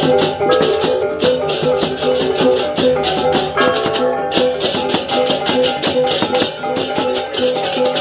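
Background music with a fast, steady shaker rhythm over a line of pitched melody notes.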